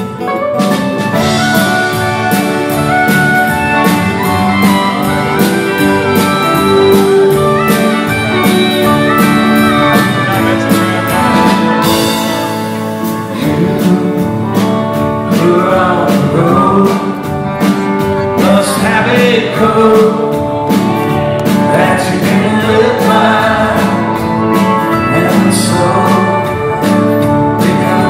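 A live band with acoustic and electric guitars, upright bass and drums starts playing a country-rock song, recorded from the audience. A man's lead vocal comes in about halfway.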